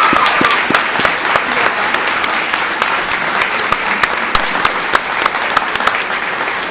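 Audience applauding with many sharp individual claps, slowly easing off; a cheer from the crowd fades out about half a second in.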